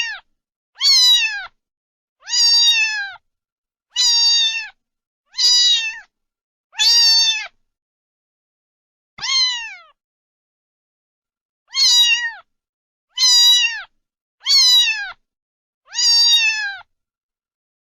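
A cat meowing over and over, about ten short, high-pitched meows each falling in pitch at the end, coming at a steady pace with a longer pause about halfway through.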